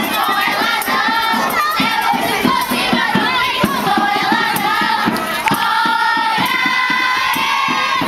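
A group of voices, many of them children's, singing together over a steady beat.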